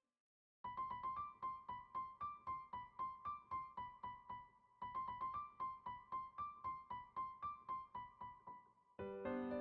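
Background music: a quick, even run of short high notes, about four a second, starting under a second in and pausing briefly near the middle. Near the end a fuller passage with lower sustained notes takes over.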